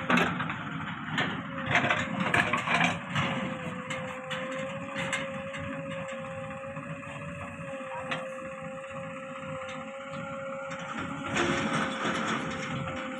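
Backhoe loader working: its engine runs under a steady whine, with bursts of clatter and scraping about one to three seconds in, again around the middle, and near the end.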